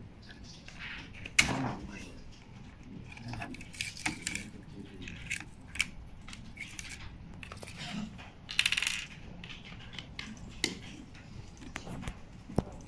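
Handling noise of small hard objects: scattered light clicks and taps, with a sharp click about a second and a half in, a short rattle about eight and a half seconds in, and another sharp click near the end.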